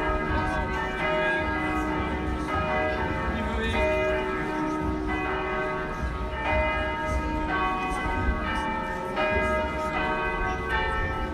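Church bells ringing, with a new stroke about every second and each tone ringing on under the next.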